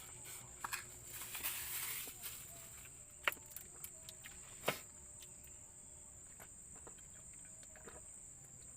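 Faint steady high-pitched insect drone, with a few sharp clicks; the two loudest come a little over a second apart near the middle.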